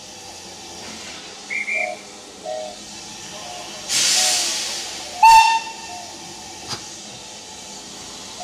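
Steam locomotive letting off a loud hiss of steam for about a second, four seconds in, then giving one short, shrill toot on its whistle.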